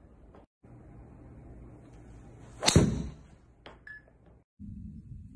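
A golf driver's clubhead striking a ball: one sharp crack about two and a half seconds in, then a fainter click about a second later.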